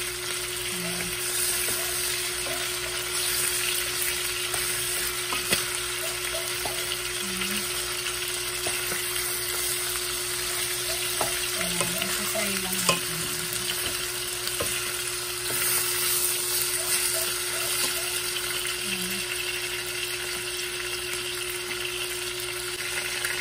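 Chicken drumsticks sizzling steadily as they fry in a stainless steel saucepan, with a wooden spatula stirring them and knocking against the pan a few times.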